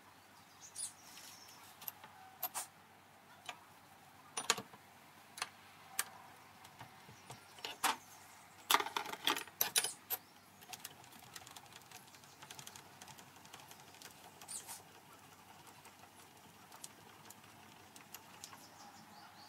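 Light, sparse metallic clicks and taps from the steel work table and its clamp being shifted and set into alignment, with a quick run of them about nine seconds in; the machine spindle is not running.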